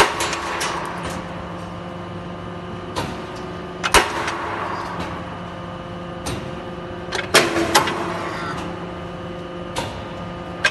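CNC hydraulic angle-steel punching and cutting machine running: a steady hum from its motor and hydraulics, with sharp metallic clanks every few seconds as it cycles. The loudest clanks come right at the start, about four seconds in, and as a quick pair about seven seconds in.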